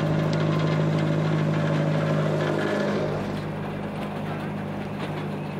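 Engine of a rubber-tyred Micheline railcar running as it rolls past, a steady hum that eases a little after about three seconds.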